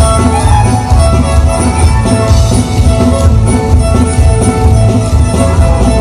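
Fast fiddle-led square dance music with guitar accompaniment over a steady, pulsing bass beat.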